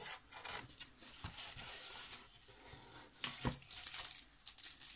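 Packaging being handled while unwrapping a parcel: irregular rustling and crinkling of paper, louder about three seconds in, with a dull knock about three and a half seconds in.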